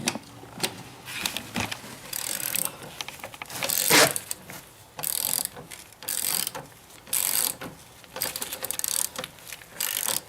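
Ratchet wrench clicking in repeated strokes, about one a second, tightening the axle nut of a small motorbike.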